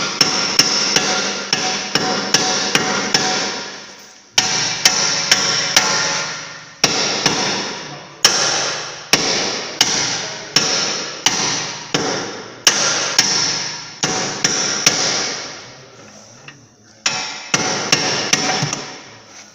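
Hammer striking steel repeatedly in runs of quick blows, about two to three a second, each with a short metallic ring, knocking a seized bolt out of an Audi A6 front suspension upper arm.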